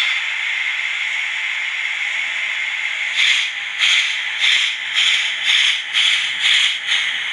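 Steam locomotive sound for a model 141 TA tank engine: a steady hiss of steam, then rhythmic exhaust chuffs begin about three seconds in, two to three a second, as the engine pulls away.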